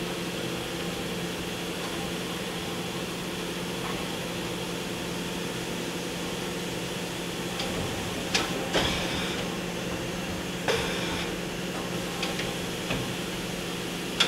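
Kia HC800 horizontal machining center's automatic tool changer cycling over a steady machine hum, with sharp metallic clunks about eight seconds in, again near eleven seconds, and a few lighter knocks toward the end as the magazine shutter and changer arm move a tool back to the magazine.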